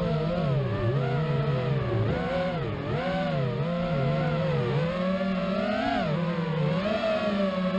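4-inch QAV-R FPV quadcopter's brushless motors whining, the pitch rising and falling constantly with quick throttle changes.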